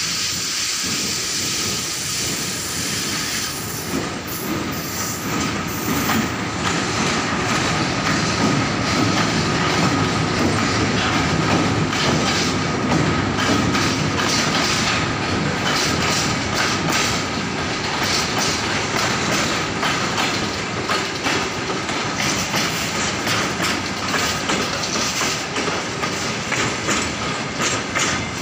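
Wagons of a maintenance train, hopper wagons and flat wagons, rolling past close by on a steady rumble. From about four seconds in the wheels clack over the rail joints, with a thin steady whine beneath. A hiss fades out in the first few seconds.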